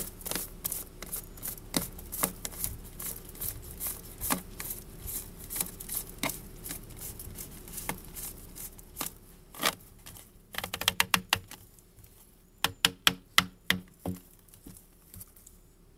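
RV sewer hose fitting being twisted and handled: a string of irregular sharp clicks and taps, then quick bursts of rapid clicking about ten to fourteen seconds in.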